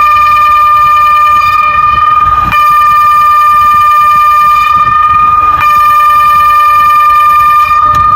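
ECI 2400 siren sounding a loud, steady tone on one unchanging pitch during a siren test, with two brief hitches in the tone about two and a half and five and a half seconds in. The tone cuts off near the end.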